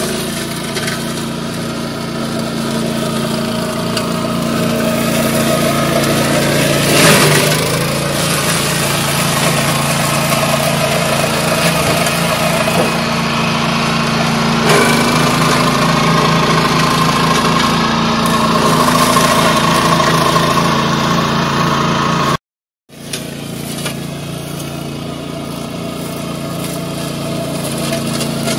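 MC328 walk-behind two-wheel tractor with a BladeRunner 60 front mower running steadily under load while it cuts through dense weeds and vines. A single sharp knock comes about seven seconds in, and the sound breaks off for a moment about 22 seconds in.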